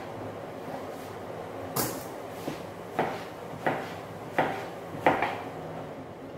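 Kitchen knife slicing eggplant on a cutting board: a series of about seven sharp chops, spaced roughly half a second to a second apart.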